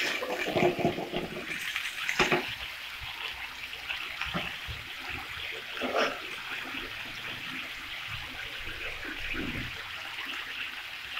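Masala sizzling and bubbling in a kadai with a little added water, being fried down while a spatula stirs it and now and then knocks and scrapes against the pan.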